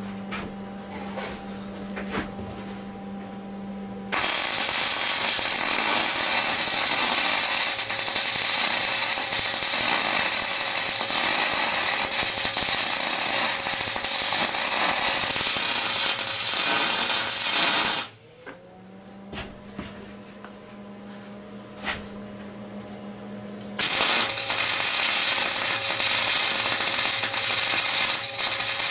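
MIG welder sizzling as it runs beads joining steel tube legs to a steel plate. The weld starts about four seconds in and runs steadily for about fourteen seconds. It stops for about six seconds, leaving a low steady hum, then a second weld starts and runs on.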